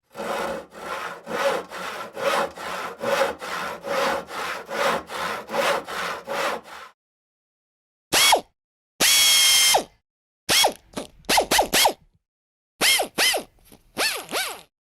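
Hand saw cutting wood, with even back-and-forth strokes about two a second, stopping about seven seconds in. After a short pause comes a series of separate sharp metallic clicks and rings, each with a falling pitch.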